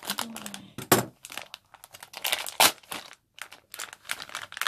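Plastic blind-bag packet being torn open and crinkled by hand: irregular sharp crackles, loudest about a second in and again a little after two and a half seconds.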